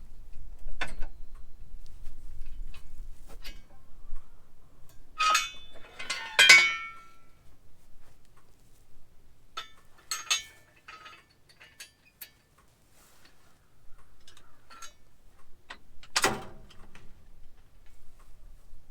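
Scattered clicks and knocks with a few short metallic clinks that ring briefly, the loudest a pair about a third of the way in and another near the end.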